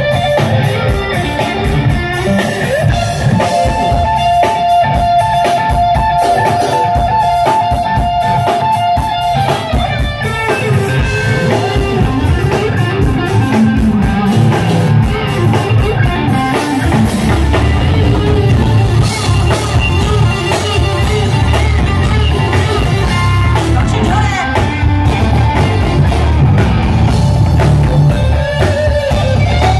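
Live band playing with an electric guitar solo out front over the drums, the guitar holding a long sustained note from about three to nine seconds in.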